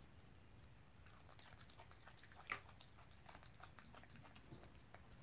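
Faint crunching and clicking of a macaque biting and chewing a raw red onion, with one sharper crunch about halfway through.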